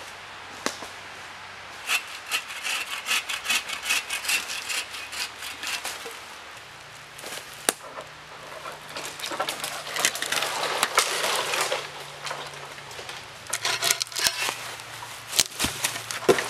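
Hand saw cutting through a small tree trunk in runs of quick back-and-forth strokes, with a few sharp cracks of wood between them.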